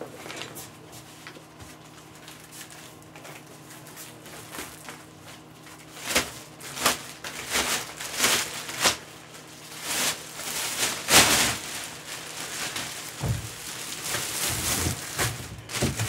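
Handling noise: items being moved about and set out on a table, a series of short rustles and scrapes that grow louder and more frequent from about six seconds in, with a few low thuds near the end, over a faint steady hum.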